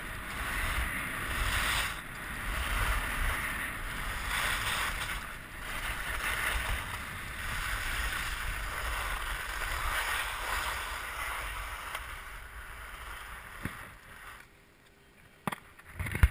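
Skis hissing and scraping over packed snow through a series of turns, with wind rumbling on the microphone. The sound dies away near the end as the skier slows to a stop, and a few sharp clicks follow.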